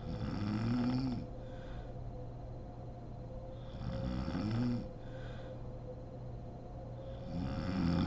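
A sleeping woman snoring: three loud snores about three and a half seconds apart, each followed by a softer breath, over a faint steady hum.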